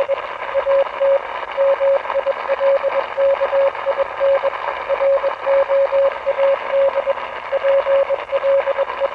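Morse code beeps on a radio signal: a single mid-pitched tone keyed in short dots and longer dashes over steady static hiss, sending a distress message that includes SOS.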